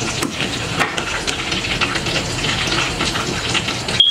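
Metal ladle stirring meatballs in thick tomato sauce in a stainless pot: steady sloshing with small clicks and scrapes against the pot. Near the end the sound drops out abruptly and a brief high-pitched beep sounds.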